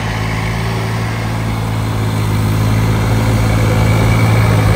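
Deutz-Fahr 70 hp tractor's turbocharged diesel engine running steadily under load while pulling a harrow through tilled soil, growing a little louder as the tractor approaches.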